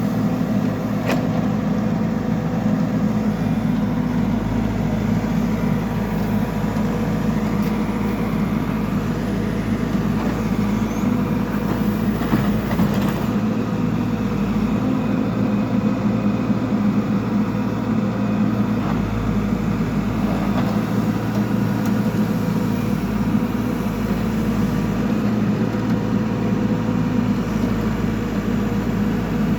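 Backhoe loader's diesel engine running steadily, a constant low drone that holds its pitch throughout.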